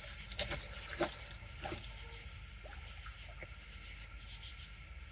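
A few sharp knocks in the first two seconds, with short high insect chirps, crickets by their sound, over a steady low background hum.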